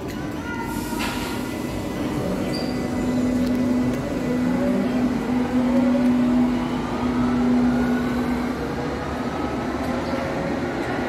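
Berlin U-Bahn H-series metro train pulling out of the station, its traction motors whining in several tones that rise steadily in pitch as it accelerates, over the rumble of the wheels on the rails.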